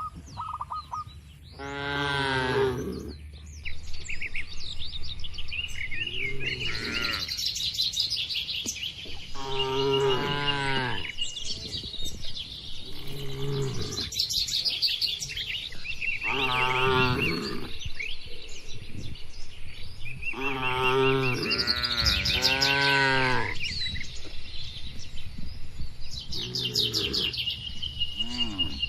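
Cattle mooing again and again: about eight long calls, each rising and falling in pitch, spread through the stretch. Small birds chirp throughout.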